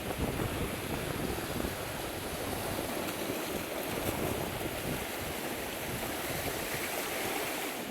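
Sea surf washing against rocks, with wind rumbling on the microphone.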